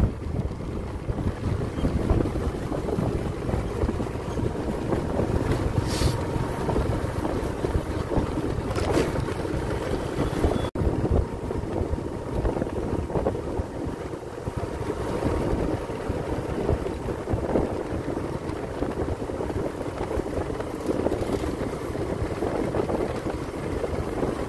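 Wind buffeting the microphone: a loud, steady rumble, with a momentary dropout about eleven seconds in.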